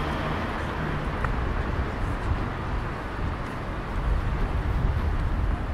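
City street noise: a steady traffic rumble with a hiss of tyres and passing vehicles.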